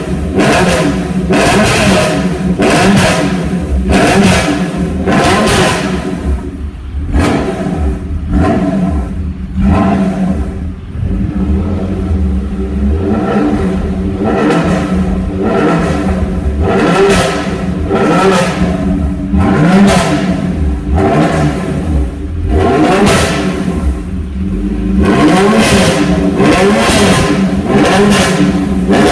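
TVR Sagaris engine running through its exhaust, heard at the tailpipe, with the throttle blipped in short revs about once a second. There is a steadier, calmer stretch in the middle before the blipping starts again.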